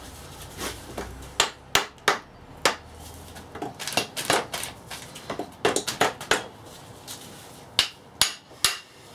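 Short hammer taps on a manual gearbox's output drive shaft, knocking it out of the differential side of the case: about a dozen sharp knocks at uneven intervals, with a quick run of taps around the middle.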